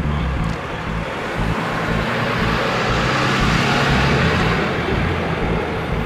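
A car passing by on the road, its tyre and engine noise swelling to a peak about four seconds in and then fading.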